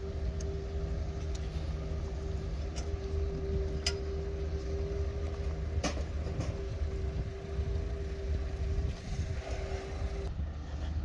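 Steady mechanical hum over a low rumble, with a held tone that cuts off suddenly near the end; a couple of sharp clicks in the middle.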